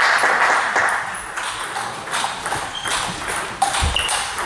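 Table-tennis ball clicking on the table and on rackets: a few scattered ticks as the server gets ready, then the serve and return near the end. A burst of crowd noise dies away in the first second.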